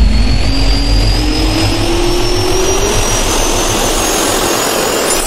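Jet turbine spool-up sound effect: a steady rushing roar with a whine that rises slowly in pitch throughout.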